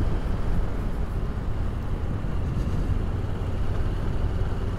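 Yamaha Ténéré 700's parallel-twin engine running steadily while riding along, mixed with wind buffeting the microphone.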